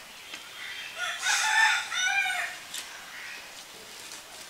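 A rooster crowing once, starting about a second in and lasting about a second and a half.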